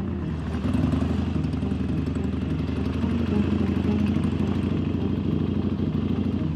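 Motorcycle engine running while the bike rides along, a steady low pulse of firing strokes, with a hiss from the wet road under the tyres.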